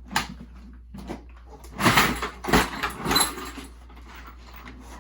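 Milwaukee Packout organizer box being handled and opened: hard plastic latches and lid clicking and clattering, busiest about two to three seconds in.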